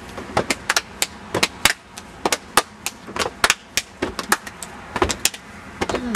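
A flurry of open-hand slaps, skin on skin: sharp, irregular smacks several times a second.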